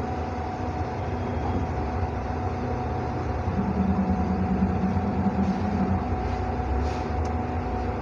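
Steady low mechanical rumble and hum with a constant whine. A deeper drone joins for a couple of seconds in the middle.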